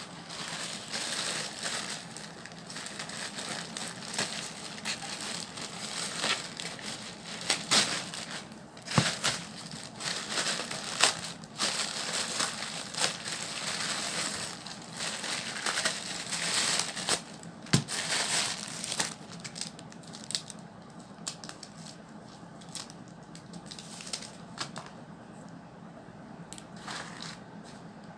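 Plastic packaging crinkling and rustling as a parcel is opened and handled by hand, with a few sharp clicks; the handling grows quieter in the last third.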